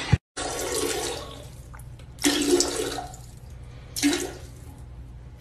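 A tabby cat standing on a toilet rim meows loudly twice, about two and four seconds in, over a steady rush of water from the flushing toilet.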